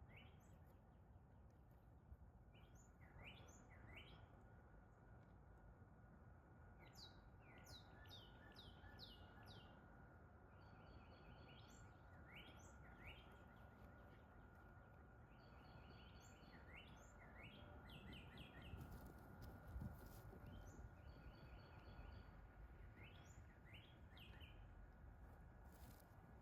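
Faint songbirds singing: repeated phrases of quick rising chirps, over a low rumble of outdoor wind.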